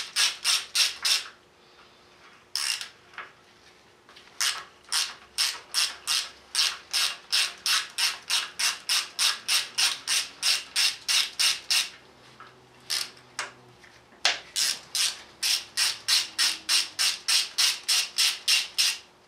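Hand ratchet wrench clicking in long runs, about four clicks a second, with short pauses between runs, as 10 mm bolts are backed out of a diesel engine's gear cover.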